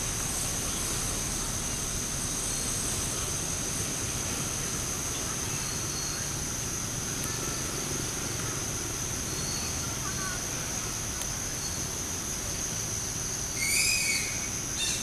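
Forest ambience: a steady high-pitched insect drone throughout, with a few faint chirps and a short, louder call near the end.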